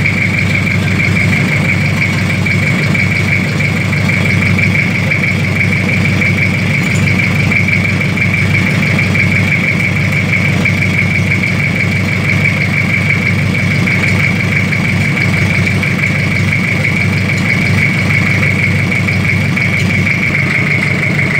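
Toyota 1C four-cylinder diesel engine idling steadily, a low running note with a steady high whine over it.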